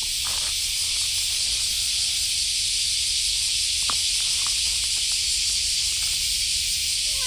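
Steady, high-pitched hiss with a few faint ticks, the sharpest about four seconds in.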